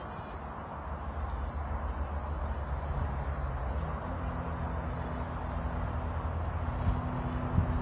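A low engine hum over a steady rushing outdoor noise. It grows louder over the first few seconds and its pitch steps up about halfway through. A sharp knock comes near the end.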